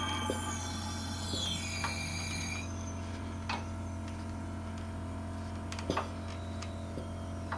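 Scattered sharp clicks and knocks of tools and metal parts being handled, with a double click about six seconds in, over a steady low hum. A cluster of high whistling tones, some falling in pitch, sounds during the first two and a half seconds.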